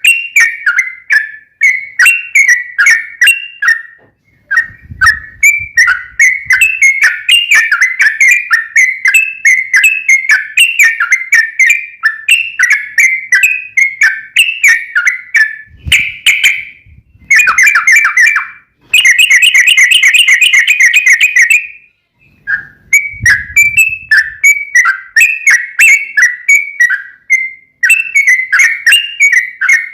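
Yellow-vented bulbul (trucukan) singing a long, continuous run of quick bubbly chirps, several notes a second. About two thirds of the way through it breaks into a faster, evenly pulsed rattling trill for a few seconds, pauses briefly, then resumes the chirping.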